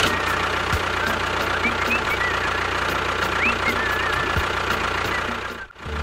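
Tractor diesel engine idling steadily with a knocking chug, with a few short rising and falling whistles on top. It drops out briefly near the end.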